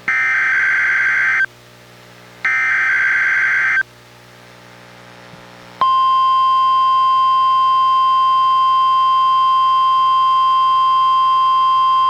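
NOAA Weather Radio Required Weekly Test tones through a Reecom R-1630 weather radio: two harsh, buzzy SAME digital header bursts, each about a second and a half long with a second's pause between, then about six seconds in the steady 1050 Hz warning alarm tone begins and holds.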